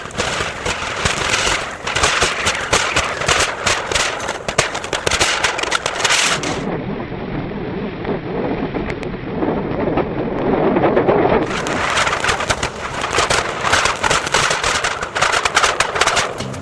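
Anar (flower-pot fireworks) on the spinning blades of a table fan, burning together: a loud, dense crackling hiss of spraying sparks with rapid sharp pops, duller for a few seconds in the middle.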